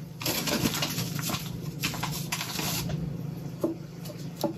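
Rustling and handling noises as meatballs are placed by hand into a pan of thick tomato cream sauce, ending in a few soft knocks, over a steady low hum.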